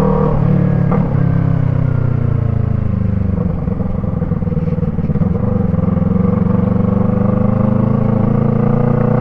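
Yamaha MT-03 parallel-twin engine running through an aftermarket Arashi exhaust with its dB-killer fitted. The engine note drops in pitch early, is lowest a few seconds in, then climbs gradually. A single click comes about a second in.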